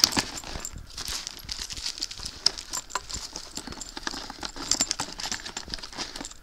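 Plastic packaging crinkling and small irregular knocks and clicks as items are handled in a cardboard box, with a sharp click at the very start.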